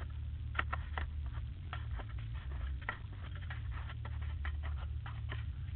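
Irregular light clicks and taps of gear being handled in a van's cargo area, over a steady low rumble.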